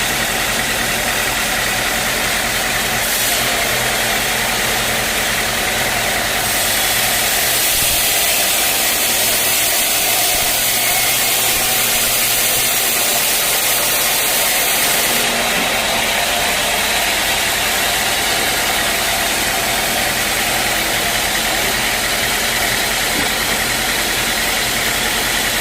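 Sawmill engine running steadily, with a brighter hiss for several seconds in the middle.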